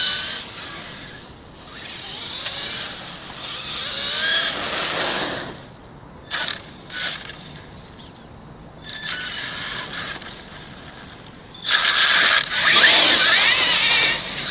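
Traxxas E-Revo 2.0 RC monster truck driving on asphalt: its electric motor whines, rising in pitch as it speeds up, along with tyre noise. It comes through loud about four seconds in and again near the end, with a few sharp clicks in the quieter stretch between.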